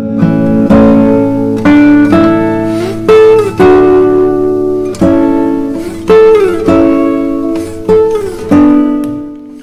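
Background music on plucked strings: a slow melody with notes picked about once a second, some of them sliding in pitch.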